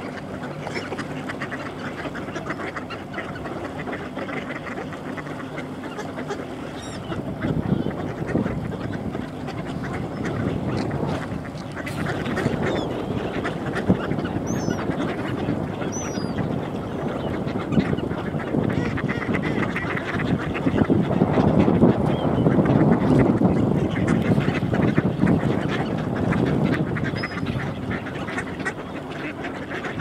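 A large flock of mallards quacking and chattering together in a continuous din. It swells louder about a quarter of the way in and again past the two-thirds mark.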